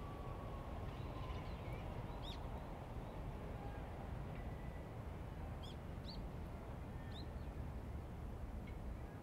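Outdoor riverside ambience: a steady low background rumble with short, high bird chirps, one about two seconds in and a few more between about six and seven seconds.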